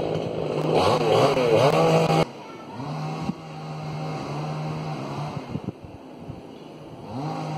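Motor vehicles passing close by, their engine and tyre noise sweeping down in pitch as each goes past. The sound is loud at first and cuts off abruptly about two seconds in, leaving a steady low engine hum, and another vehicle passes near the end.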